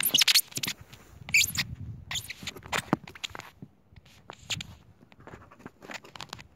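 Handling noise from the camera being gripped and set down: fingers rubbing and tapping near the microphone in a rapid string of scrapes and clicks, loudest in the first half second and again about a second and a half in.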